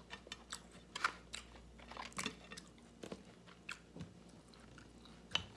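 A person chewing food close to the microphone: irregular wet mouth clicks and smacks, with a sharper click near the end.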